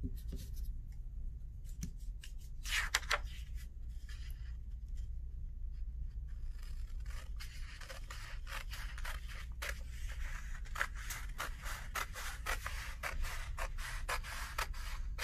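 Scissors cutting through a sheet of construction paper, a run of snips that comes thick and fast from about halfway through.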